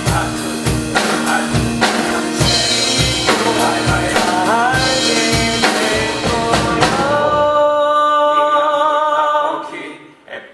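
A male voice sings a musical-theatre song over a live band, with a drum kit keeping a steady beat of about two hits a second. About seven seconds in, the drums stop and the song ends on a long held chord that fades away near the end.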